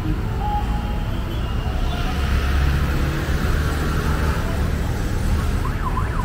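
Road traffic with a steady engine rumble; a motor vehicle passes close by about two seconds in. Near the end, a siren starts with quick rising-and-falling yelps.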